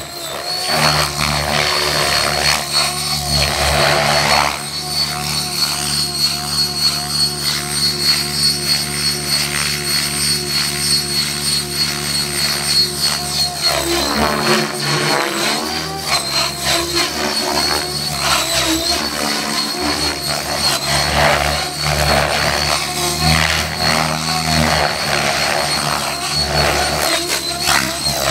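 Align T-Rex 700 radio-controlled helicopter flying aerobatics: a steady high whine over rotor noise, with pitch and loudness shifting from manoeuvre to manoeuvre.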